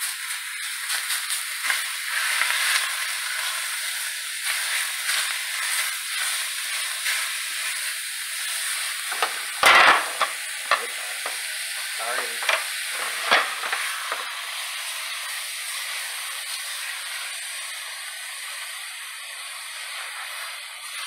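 Ground turkey sizzling in a stainless steel pan while a spatula breaks it up and scrapes across the pan, with a few louder knocks and clatters about halfway through.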